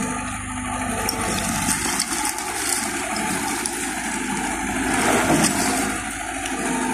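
Kubota skid steer loader's replacement diesel engine running steadily under working load, with dirt and rubble spilling and clattering out of the raised bucket. The sound swells briefly about five seconds in.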